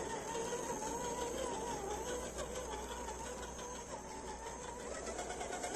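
Electric motor and geared drivetrain of an RGT EX86110 1/10-scale RC crawler whining as it crawls, the pitch wavering up and down with the throttle.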